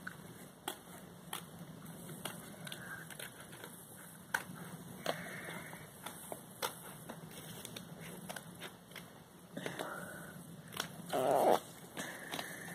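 Scissors snipping paper in short, irregular cuts, cutting out a small traced circle. Near the end comes one louder, brief rough sound.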